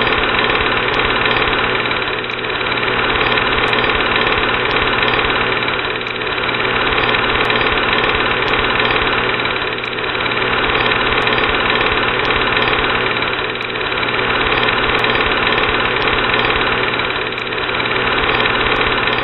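A loud, steady engine running, its rumble swelling and easing about every four seconds.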